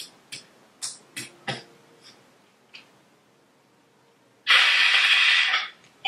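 A woman's stifled laughter through a covered mouth: about seven short breathy bursts over the first three seconds. Then, about four and a half seconds in, a loud rush of noise that lasts just over a second.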